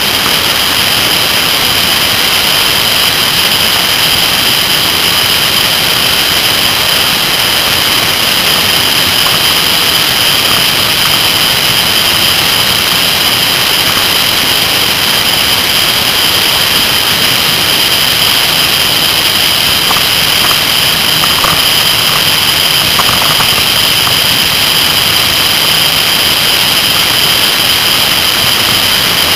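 Kawasaki ZR-7S motorcycle ridden at speed: loud, steady wind and road rush over the bike-mounted camera, with the air-cooled inline-four engine running beneath it.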